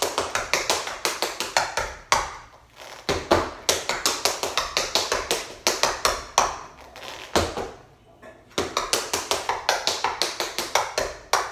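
Tap shoes striking a wooden mat in fast runs of taps (heel drops, shuffles, steps), with two short breaks, about two seconds in and about eight seconds in.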